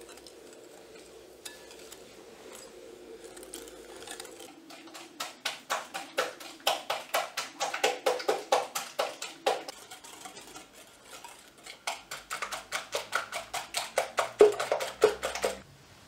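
Wire whisk beating a batter in a glass bowl, the metal wires clicking rapidly against the glass at about four or five strokes a second. It starts about four seconds in, pauses briefly midway, resumes, and stops just before the end.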